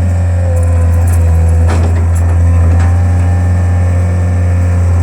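Skid steer engine running steadily with a deep, even drone, and a few short knocks from the machine about two to three seconds in.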